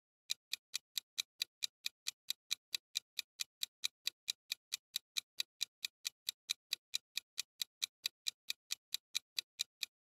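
Clock-style ticking sound effect, sharp evenly spaced ticks at about four a second, counting down the time to guess the answer.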